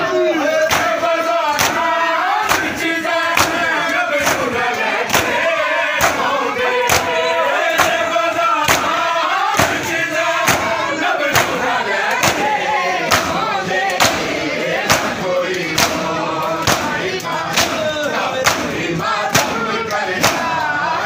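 A crowd of men beating their chests in unison (matam), sharp hand slaps about two a second, with many voices chanting together over them.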